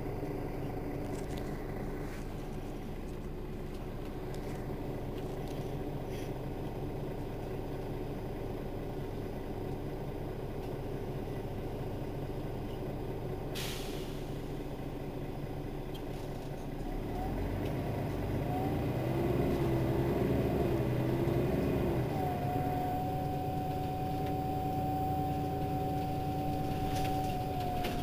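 Mercedes-Benz Citaro city bus's diesel engine running steadily, with a single sharp click about halfway. It then pulls harder and louder as the bus accelerates. In the last few seconds a steady drivetrain whine sets in, dropping slightly in pitch at the very end.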